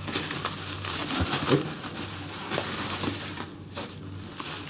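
Shredded paper packing filler and plastic wrapping rustling and crinkling as they are handled and pulled out of a box, with many small irregular crackles. It goes briefly quieter a little after three seconds.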